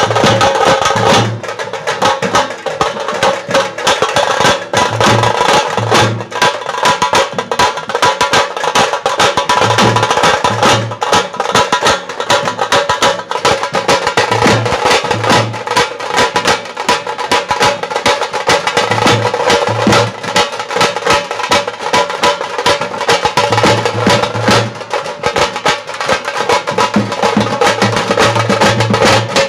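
A tasha drum band playing: several tasha drums beaten with thin sticks in a fast, dense, unbroken roll, with a large bass drum striking in pairs of deep beats every few seconds.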